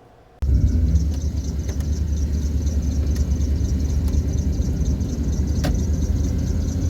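A van's engine running, a steady low rumble heard from inside the van, starting suddenly about half a second in, with a few faint clicks.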